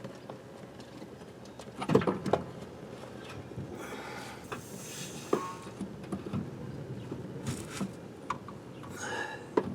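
Scattered metallic knocks and clunks as a car's power transfer unit is worked loose from its mounting under the vehicle, the loudest a cluster about two seconds in.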